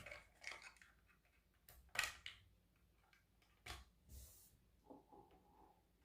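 Faint, scattered clicks and taps of plastic as a 9-volt battery is worked out of the battery compartment on the back of a First Alert carbon monoxide detector. The clearest click comes about two seconds in.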